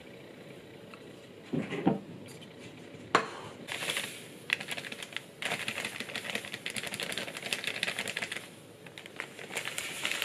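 Silicone spatula working damp okara and sugar in a bowl. A few separate knocks come in the first seconds, then long runs of rapid, fine ticking and squishing.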